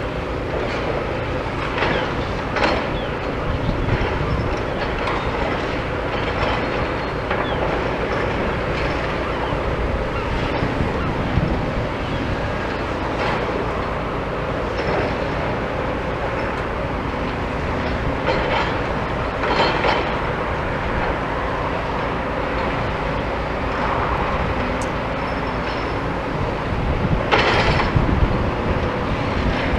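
Demolition excavator's engine running steadily, with repeated sharp clanks and crunches as it works at steel-reinforced concrete. A louder cluster of clanks comes near the end.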